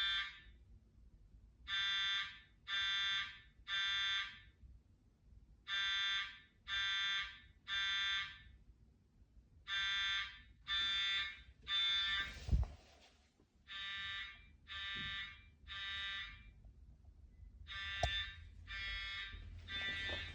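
Fire alarm sounding in the temporal-three evacuation pattern: three shrill beeps about a second apart, then a short pause, repeating. A thump about twelve seconds in is the loudest single sound. After it the beeps are quieter.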